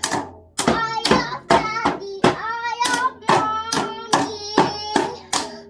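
Young child beating a red plastic toy drum set with drumsticks, repeated sharp hits two to four a second, while singing along in a high child's voice.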